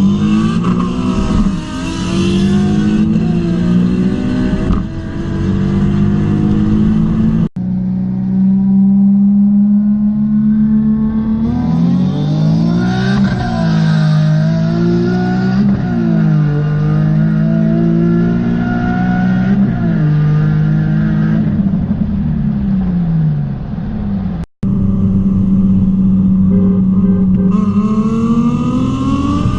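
Rear-mount single-turbo Nissan 350Z's VQ35HR V6 accelerating hard, its pitch climbing through each gear and dropping at the shifts. The sound breaks off abruptly twice where one run gives way to the next.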